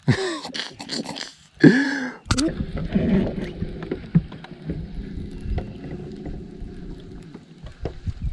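A man's voice briefly, then the low rumble and faint steady hum of a bass boat on the water, with a few light clicks.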